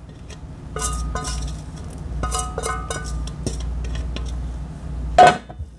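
An enamelware bowl being knocked and tapped against the rim of an enamel mixing bowl to empty out dry flour. It gives a run of ringing clinks, with the loudest knock about five seconds in.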